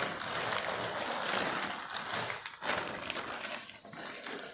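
Clear plastic bag crinkling and rustling as it is handled and opened, a continuous scratchy noise with irregular crackles that dips briefly twice.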